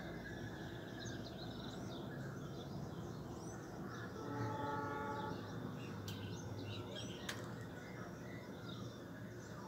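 Town ambience: a steady low hum of distant traffic and city noise, with small birds chirping. About four seconds in, a distant horn-like tone sounds for about a second, and two sharp clicks follow a little later.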